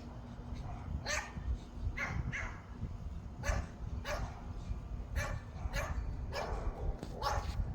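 A dog barking repeatedly, about ten short barks at irregular intervals, over a steady low rumble.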